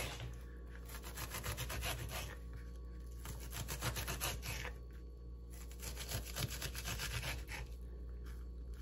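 Knife chopping an onion finely on a cutting board: runs of rapid, even strokes with short pauses between them.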